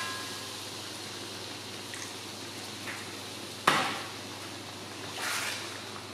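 Metal ladle stirring fish in coconut milk in a metal wok, over a low steady hiss of the pan heating. A few light clinks, one sharp clack of the ladle against the wok about three and a half seconds in, the loudest sound, and a short scrape a little past five seconds.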